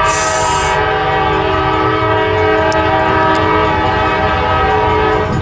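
Air horn of a Kansas City Southern GE AC4400CW diesel locomotive, held in one long blast as a warning for the grade crossing and cutting off near the end, over the low rumble of the approaching train.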